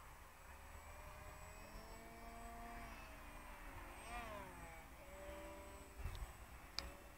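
Faint whine of a model flying wing's Emax 2950 kV brushless motor and 4.5-inch propeller, its pitch sliding up and down, rising and falling sharply about four seconds in. A sharp click near the end.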